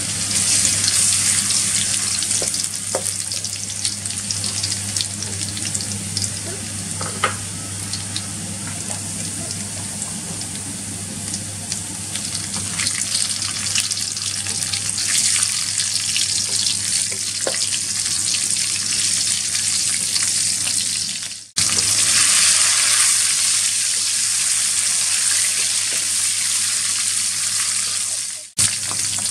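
Minced garlic sizzling in hot oil in a steel wok, stirred with a wooden spatula that scrapes now and then. The sizzle cuts out abruptly twice in the second half.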